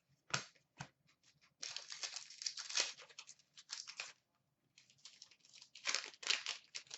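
Wrapper of a hockey card pack crinkling and tearing as it is opened by hand, with cards being handled. A few sharp clicks come in the first second, then two spells of crinkling, the second starting about five seconds in.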